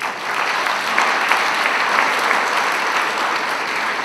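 Audience applauding, loud and steady, breaking out at the close of a speech.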